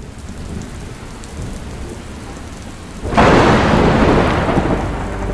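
Thunderstorm: low rumbling thunder over steady rain, then a sudden loud thunderclap about three seconds in that slowly dies away.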